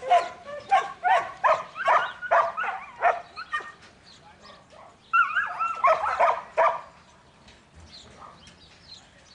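A dog barking in quick repeated barks for about four seconds, then a denser run of higher, yelping barks around the middle.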